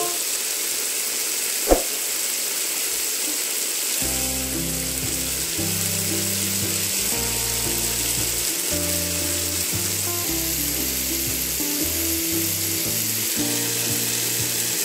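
Chicken masala sizzling in a metal pot: a steady frying hiss, with background music coming in about four seconds in. A single sharp click just before two seconds.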